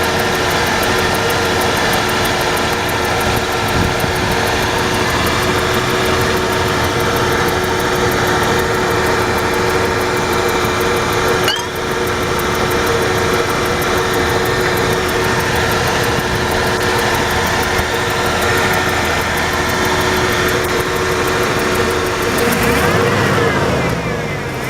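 1994 Ford F-150's 4.9-litre inline-six idling steadily, firing on all cylinders again after a faulty new spark plug was replaced. Near the end the engine note changes pitch briefly.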